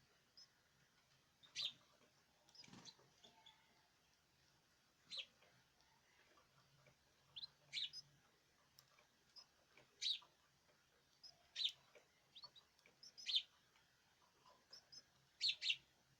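Small cage birds giving short, high chirps, singly and in quick pairs, at irregular intervals of a second or two.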